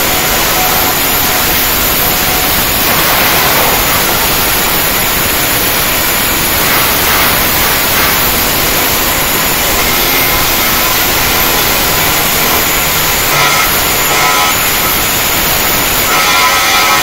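Flux-cored arc welding (FCAW) arc running steadily, a loud even hiss as the wire is welded into a vertical/overhead steel joint.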